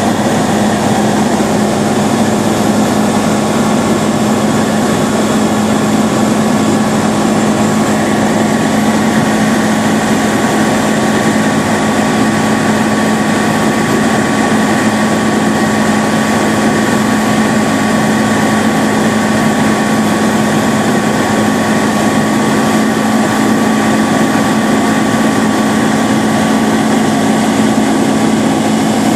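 Roland Z602 ultralight's piston engine and propeller running steadily on the landing approach, heard inside the cockpit as a constant low hum with a thin higher tone over a wash of airflow noise.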